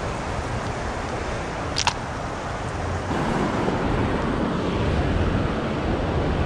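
Steady rushing of river water through spillway rapids, a little louder from about halfway through, with one sharp click about two seconds in.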